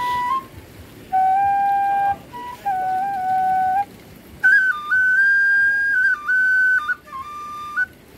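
Bamboo suling flute played in short phrases of held notes with small steps in pitch: two lower phrases, then a longer, higher phrase from about halfway through, with brief breaths between.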